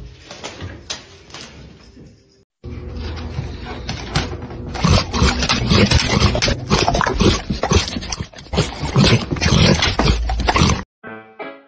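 Faint music for about two seconds, then after a cut a dog noisily chomping and crunching a green bean held to its mouth, loud and close, in a quick, irregular run of bites.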